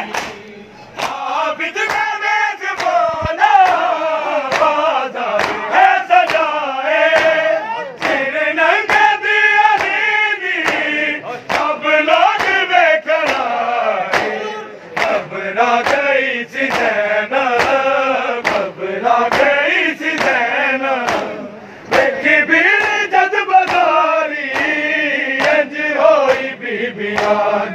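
A crowd of men chant a Punjabi noha, a Shia lament, in unison. A steady beat of sharp slaps runs under the chant throughout: matam, bare-handed chest-beating, kept in time with it.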